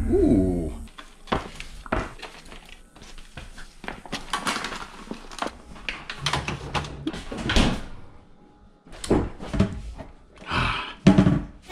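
Kitchen handling noises: refrigerator and cupboard doors opening and closing, and containers picked up and set down, as a string of knocks, clicks and rustles. A falling whine fades out within the first second, and there is a louder thump near the end.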